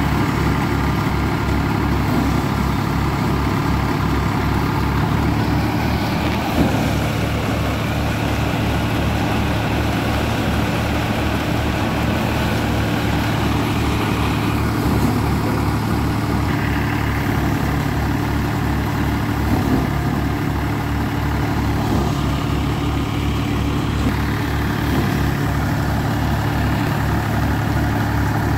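Tractor engine running steadily under load as it drives a Dasmesh paddy thresher through its PTO, the threshing drum whirring along with it while paddy is fed in. A couple of brief knocks stand out.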